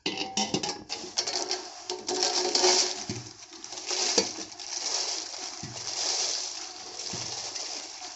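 Roasted dried red chillies pouring out of a steel pot into a wide steel dish: a continuous dry rustling and crackling of the pods sliding over each other and onto the metal, with a few sharp clicks.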